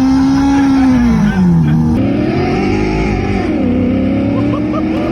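Simulated engine sound played through a car's speakers by an OBD-linked sound app, its pitch following the real engine speed. One engine tone holds, dips about a second in, cuts to a new tone about two seconds in, and then rises and falls again.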